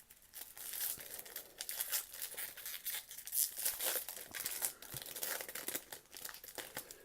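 Plastic trading-card pack wrapper being torn open and crinkled by hand, a continuous irregular crackling with sharper tearing moments. The wrapper is a stubborn one to open.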